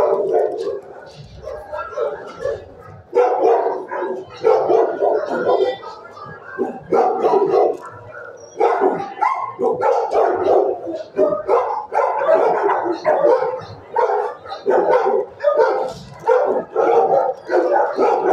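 Dogs barking in a shelter kennel, a near-continuous run of barks with a few short lulls.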